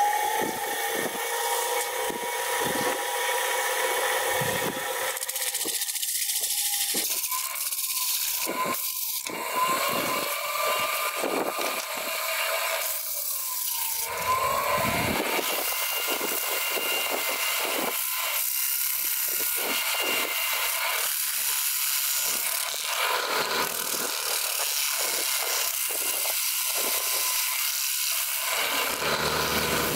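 Small metal lathe spinning a steel hammer head while abrasive paper is held against it, a steady scraping hiss over the lathe motor's faint whine.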